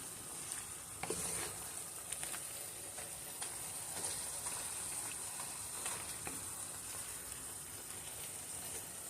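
Cubed beef and mushrooms sizzling in their juices in a pan, a steady hiss with scattered small clicks and pops.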